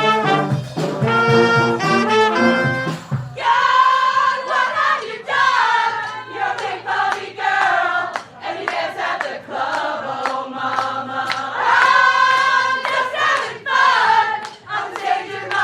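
Brass band playing with a heavy low brass bass line, which stops about three seconds in. A group of voices then sings together, unaccompanied but for a faint low held note.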